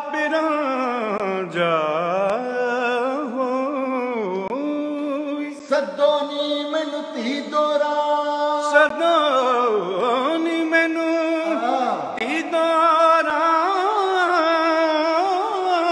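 A man singing unaccompanied, in long held notes that slide and waver in pitch, with ornamented turns between them.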